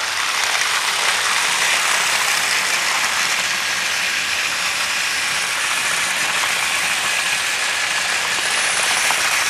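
Several battery-powered Tomy/TrackMaster toy trains running together on plastic track, their small motors, gears and wheels making a steady mechanical whir.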